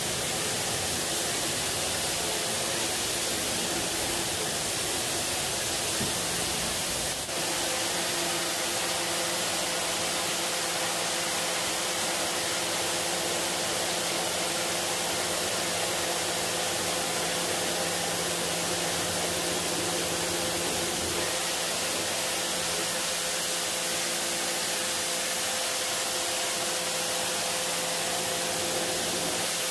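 Pressure washer jet spraying water onto the bus floor: a continuous, even hiss with a steady low hum under it.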